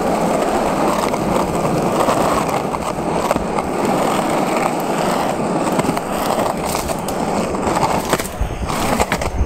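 Plastic penny board's small urethane wheels rolling steadily over rough asphalt, a continuous rumble, with a few sharp clicks near the end as the wheels cross cracks in the road.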